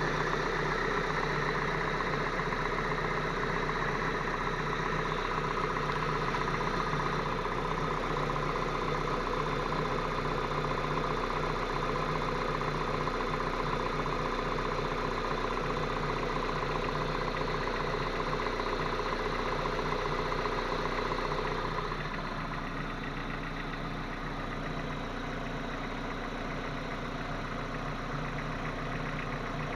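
Geely Emgrand EC7's 1.8-litre four-cylinder petrol engine idling with a knock. About two-thirds of the way through the sound turns slightly quieter and duller.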